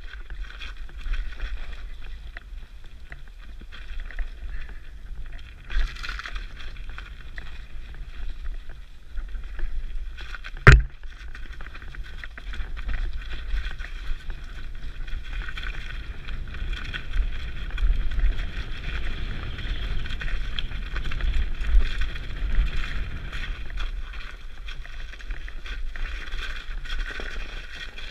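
Mountain bike riding down a snowy trail: steady rolling and drivetrain noise with low wind rumble on the helmet-mounted microphone. There is a single sharp knock about ten seconds in.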